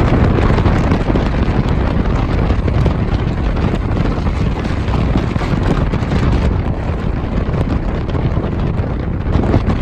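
Strong wind buffeting the microphone: a loud, steady rumbling hiss with a heavy low end.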